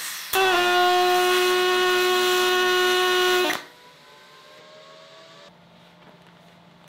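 Pulsed MIG welder arc running a bead on aluminum: a steady pitched buzz with hiss for about three seconds, stopping abruptly.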